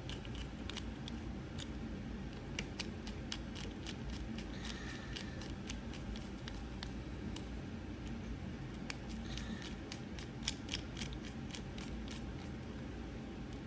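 Scattered small clicks and ticks of irregular timing as screws are driven back into a rivet gun by hand, over a steady low hum.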